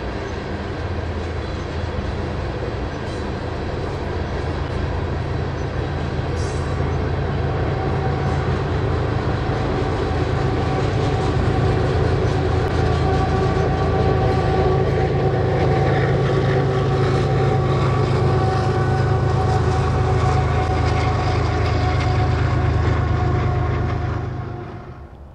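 Freight train of railway tank cars rolling past with the rumble and clatter of steel wheels on rail. A diesel locomotive at the tail of the train then comes by, and its engine drone grows louder and holds steady before the sound drops away near the end.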